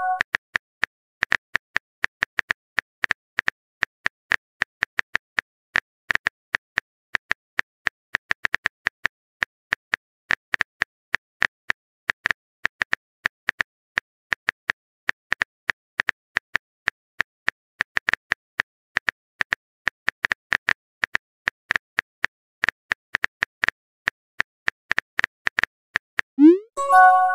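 Chat app's keyboard typing sound effect: a long run of quick, irregular clicks, several a second. Near the end it gives way to a short rising pop with a few bright tones, the message-sent sound.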